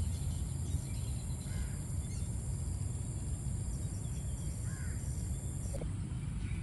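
Low, steady outdoor rumble, typical of wind on the microphone, with two or three faint bird calls, one about a second and a half in and another near the end.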